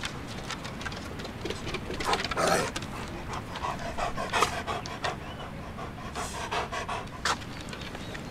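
Dog panting close by in quick, irregular breaths, loudest about two seconds in.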